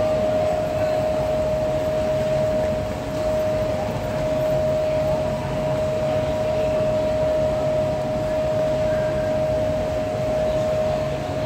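SBB Re 460 electric locomotive standing at the platform, giving off one steady high whine over a fan-like hiss and a low hum.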